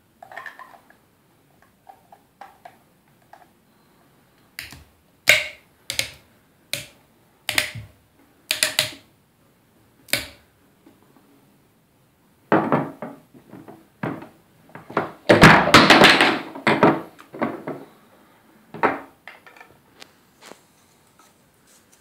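Grey PVC pipe elbows and fittings being handled and pushed together: scattered hard plastic clicks and knocks, with a busier few seconds of rattling and scraping about halfway through.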